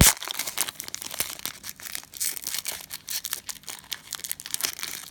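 Cellophane wrapper of a trading-card cello pack crinkling and tearing as it is ripped open, in a dense run of irregular crackles with a sharp crack right at the start.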